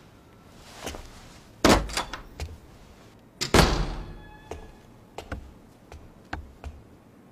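A front door being shut: two heavy thuds about two seconds apart, followed by a few light, soft footsteps.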